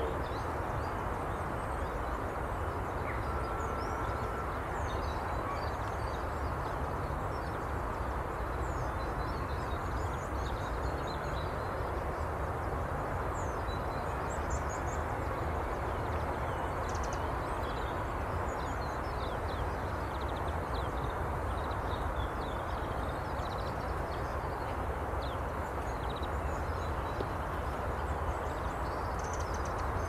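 A steady low rumble of distant traffic under many short, high chirps of small songbirds.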